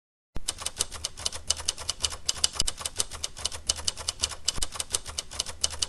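Rapid, irregular clicking, many sharp clicks a second, like fast typing, over a low steady hum; it starts abruptly just after the beginning.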